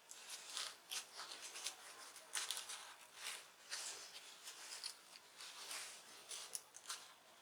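Faint, irregular scratching and clicking of a plastic guitar plectrum being worked along the seam of a smartphone's glued back cover to pry it off.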